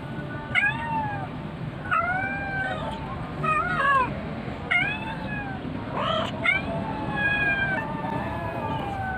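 Stray cat meowing repeatedly, about six meows that rise and fall in pitch, the last one drawn out.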